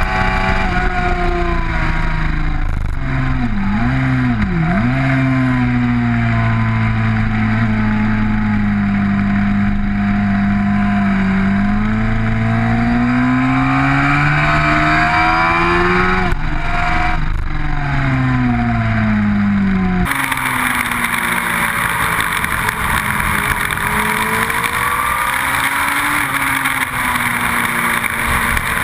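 Motorcycle engine recorded by a camera mounted on the bike as it laps a track: the engine note rises and falls with the revs through the corners, with a sharp dip about four seconds in and a quick break in the note about sixteen seconds in. About twenty seconds in the sound cuts to a second onboard camera, where a steady hiss of rushing air covers a fainter engine.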